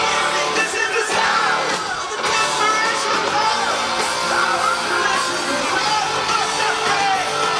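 A rock band playing live at full volume, with a lead singer and yelling from the crowd close to the microphone.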